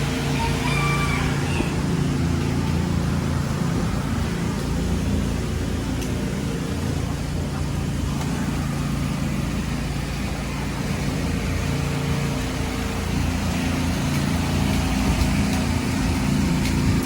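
A steady low mechanical hum with a constant rushing noise over it.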